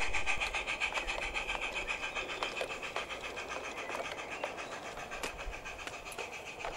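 16mm-scale garden railway train running away along the track: a rapid, even ticking that fades as it draws away, with a few sharper clicks.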